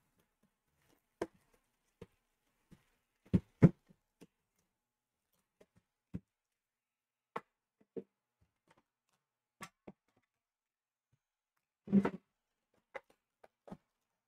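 Scattered short clicks and knocks of a sealed metal trading-card tin being handled, unwrapped and opened, with a louder cluster of knocks about twelve seconds in.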